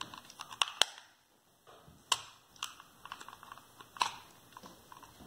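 Scattered sharp clicks and small snaps of plastic as a tool pries open the seam of a water flosser's plastic housing, a few of them louder than the rest.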